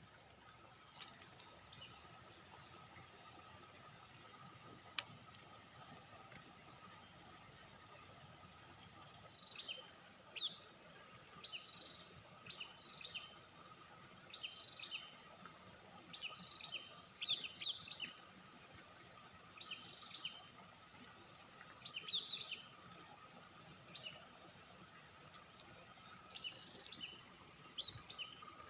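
Steady high-pitched drone of insects such as crickets, with birds chirping over it. A string of short repeated chirps starts about a third of the way in, and a few louder, sharper bird calls stand out.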